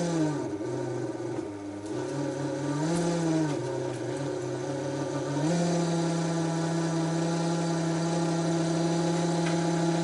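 Small 220–240 V mains axial fan running just after a few drops of oil were put into its bearing. Its hum wavers up and down in pitch twice, then settles into a steady tone about five seconds in.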